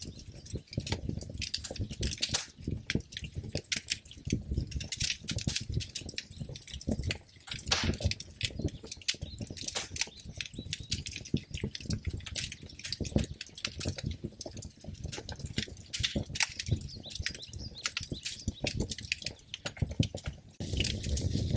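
Wood fire burning in a fireplace, with dense, irregular crackles and pops over a low rumble of the flames.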